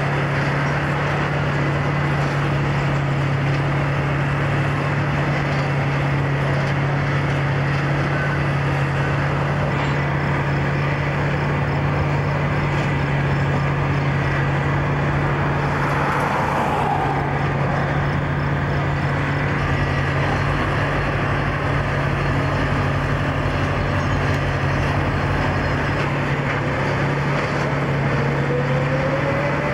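Steady low diesel engine drone from a track renewal machine working, over a wide hissing noise. A short falling whine comes about halfway through, and a rising whine near the end.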